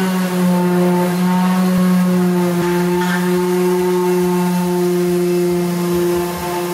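Electric orbital sander running steadily against the wooden frame of a kitchen cabinet, a constant motor hum.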